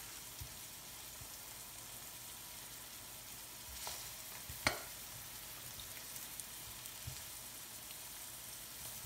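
Diced onion sizzling gently in olive oil in a nonstick wok while it sweats, stirred with a plastic slotted spatula. A faint steady sizzle runs throughout, with two short knocks of the spatula against the pan a little before halfway, the second the louder.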